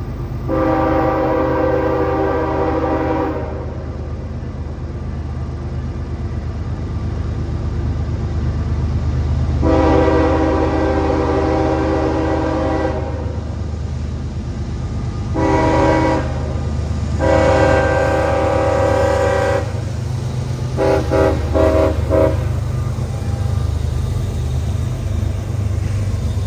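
GE diesel locomotive's horn sounding the grade-crossing signal. It gives two long blasts, a short one and a long one, then a few quick short toots. Underneath is the steady low rumble of the locomotive's diesel engine pulling a heavy train.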